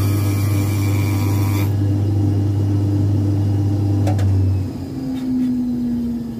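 Shoe finishing machine's motor running with a steady hum, and a high hiss of the sole being worked against its spinning attachment that stops abruptly after about two seconds. Past the middle the machine is switched off, and its hum gives way to a slowly falling whine as it spins down.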